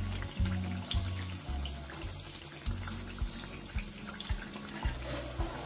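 Battered eggplant slices (beguni) frying in hot oil in a kadhai: a steady sizzle with small crackles. Background music with a regular bass beat plays over it.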